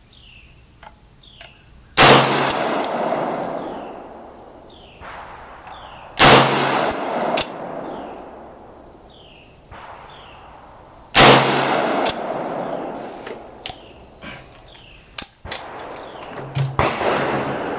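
Three single rifle shots from an AR-15, about two, six and eleven seconds in, each followed by a long echo that dies away over a couple of seconds. A few short sharp clicks and clinks follow the third shot.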